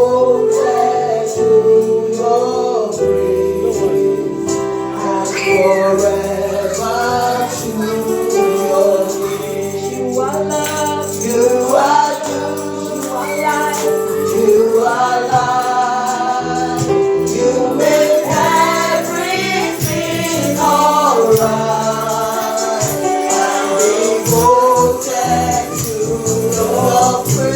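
Live gospel worship music: a worship leader and congregation singing with a band playing steady bass notes, and a tambourine shaking along.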